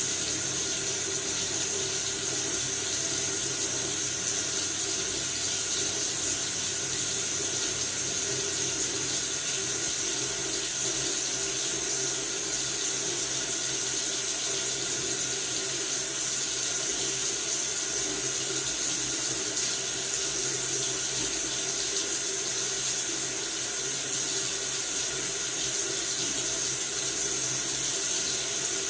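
Tap water running steadily from a faucet into a sink, an even hiss.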